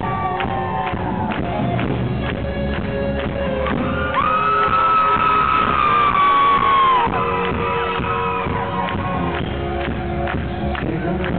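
Live rock band playing through a hall PA: electric guitars, bass and drums. A long high note is held from about four seconds in and falls away about three seconds later, with crowd shouts and whoops over the music.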